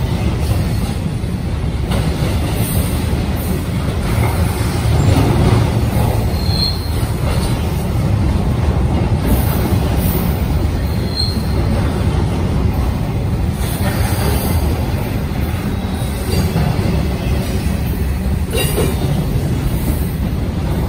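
Union Pacific double-stack intermodal freight train rolling past: a steady rumble of steel wheels on rail, with two short high wheel squeals about a third and about halfway through.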